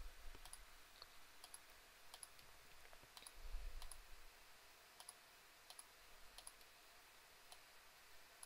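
Faint computer mouse clicks, a dozen or so at irregular intervals, over quiet room hiss, with a brief low rumble about three and a half seconds in.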